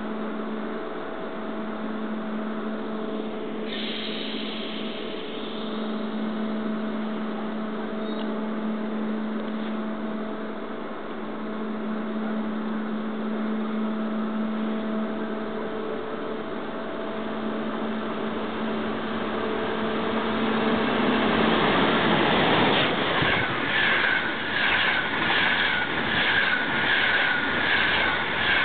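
Electric traction equipment of a class 471 CityElefant double-deck unit humming with steady tones as it pulls out. After about 20 seconds it gives way to a passenger train passing close at speed: rushing wheel noise with a steady whine, and a regular clatter of wheels over rail joints, about two clicks a second.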